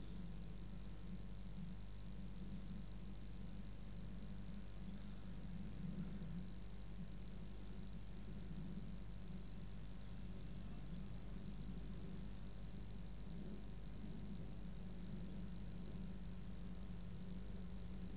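Steady background noise of a computer recording setup: a low electrical hum with constant high-pitched whining tones, unchanging throughout.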